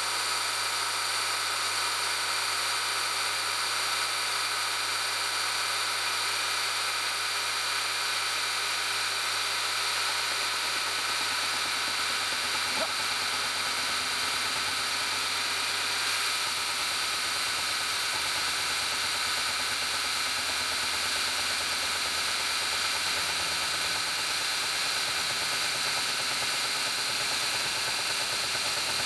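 Milling machine spindle running steadily, driving a disc gear cutter through a steel gear blank during gear cutting: a continuous machine hum with a bright hiss. The low hum shifts about halfway through.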